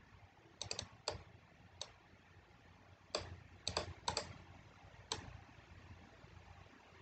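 Computer keyboard and mouse clicking: about a dozen sharp clicks in uneven clusters, stopping about five seconds in.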